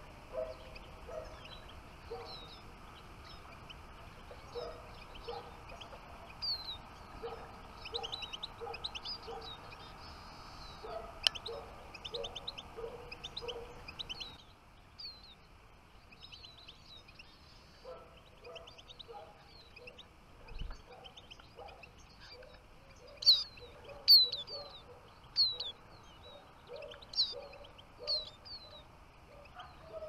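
Small finches calling: many short high chirps and downslurred whistles, with a few louder calls past the middle, over a lower short note repeated in runs. There is a single sharp click about eleven seconds in.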